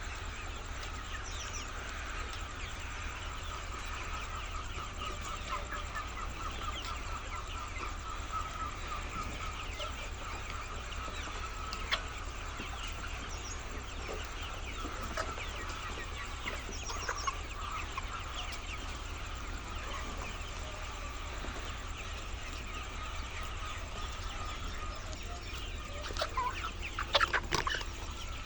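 A flock of laying hens clucking and chattering continuously over a steady low hum, with a brief burst of louder, sharper sounds near the end.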